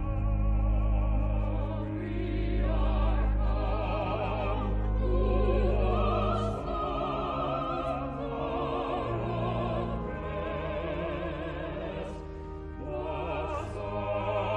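Large choir singing a festival anthem in long, full chords with a wavering vibrato, over deep held bass notes from the accompaniment, in an old stereo concert recording.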